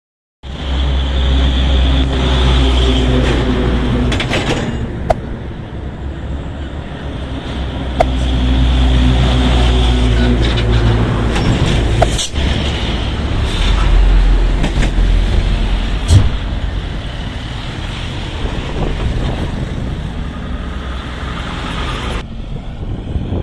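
Heavy diesel truck engines working hard up a bridge incline and passing close by, over steady road traffic. A few sharp clicks stand out in the middle, the loudest about two-thirds of the way in.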